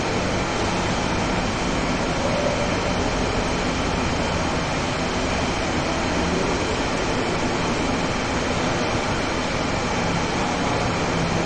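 Steady, unbroken background noise of a large hall, spread evenly from low rumble to hiss, with no distinct events.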